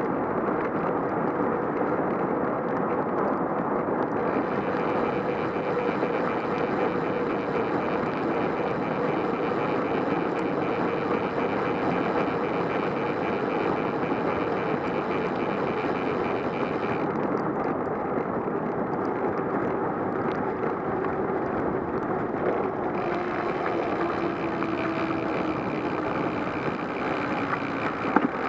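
Steady rushing noise of a bicycle riding on wet roads in the rain, wind and tyre spray on the microphone, with a faint hum that slowly drops in pitch near the end. A higher hiss drops out for several seconds past the middle, and there is a brief knock just before the end.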